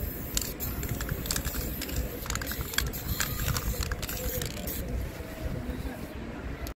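Aerosol spray-paint can hissing as a tag is sprayed onto a wall, with scattered short clicks and knocks throughout; the hiss fades near the end and the sound cuts off abruptly.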